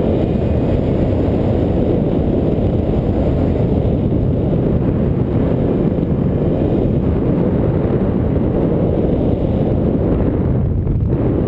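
Wind rushing over the microphone of a camera carried by a paraglider in flight: a loud, steady, low rushing noise of airflow.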